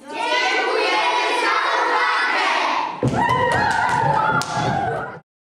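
A group of children shouting and cheering together, many voices at once. About three seconds in they grow rowdier and heavy thuds join in. The sound cuts off abruptly about five seconds in.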